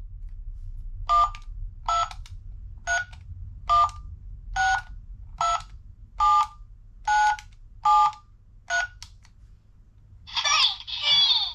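Peppa Pig Flip And Learn toy phone's keypad giving ten short two-tone dialing beeps, one key press about every second. Near the end, a burst of chirpy electronic sound from the toy's speaker starts.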